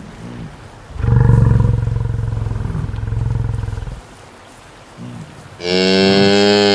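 Cattle mooing: a long, low moo of about three seconds, then a shorter, higher, brighter moo near the end.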